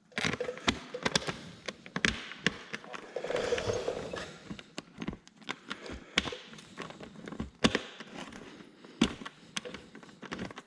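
Irregular light clicks, taps and knocks of hand tools and metal parts being handled while a radiator brace is bolted onto a dirt bike, with a brief denser clatter a few seconds in and a couple of sharper knocks near the end.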